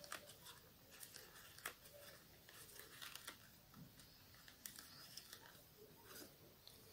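Near silence, with faint scattered ticks and soft rustles from a metal-tipped crochet hook and yarn being worked in single crochet stitches.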